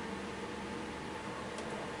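Steady background hiss with a faint, even hum.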